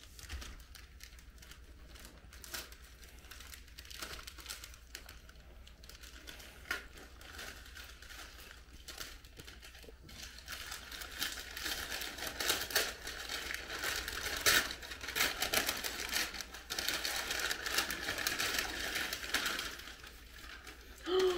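Gift wrapping paper rustling, crinkling and tearing as a present is unwrapped by hand, getting louder and busier about halfway through.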